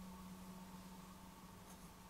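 Near silence: room tone with a steady low hum and faint hiss.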